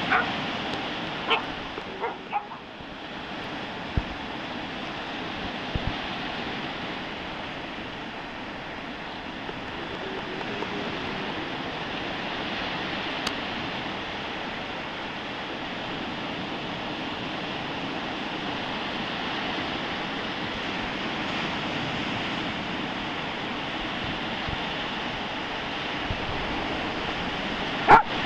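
Stormy sea surf and wind: a steady rushing of waves. A dog gives a few short yips and barks in the first couple of seconds and again at the very end.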